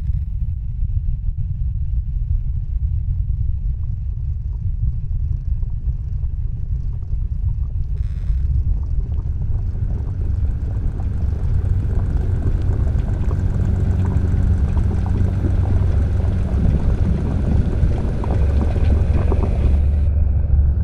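Soundscape of a deep, steady low rumble. About eight seconds in, a layer of crackling noise with faint steady tones joins it and thickens, and its upper part cuts off abruptly near the end.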